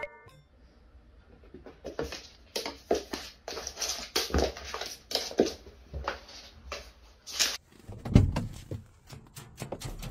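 A cat scuffling and rolling on a hard laminate floor: irregular taps and knocks, with a heavier thump about eight seconds in.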